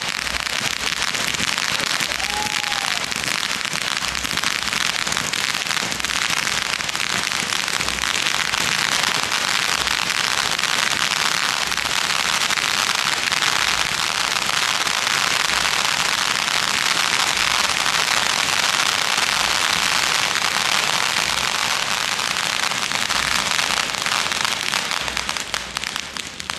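A row of firework ground fountains (gerbs) spraying sparks, with a steady loud hiss and dense fine crackle that dies away near the end as they burn out.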